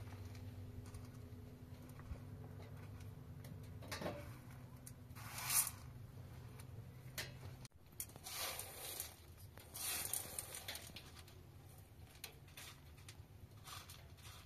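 Dried red beans being picked over by hand in a pan: handfuls of beans sliding and rattling against the pan in short, irregular bursts, the loudest about five and a half seconds in.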